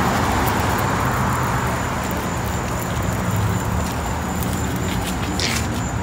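Road traffic going by: a steady wash of tyre and engine noise over a low rumble, loudest at the start and easing off a little.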